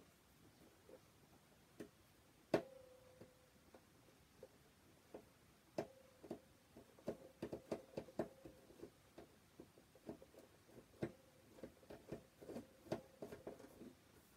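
A small screwdriver working at a stubborn screw gives faint, irregular clicks and scrapes. They are sparse at first and come thicker in the second half, with a faint steady tone coming and going under them.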